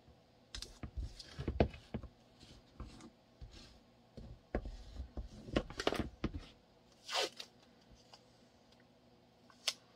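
Scattered light clicks and knocks from hands working small pieces at a bench, with a few short scraping rasps, the loudest about seven seconds in. The pieces are blocking being set on a pistol mold for a kydex holster.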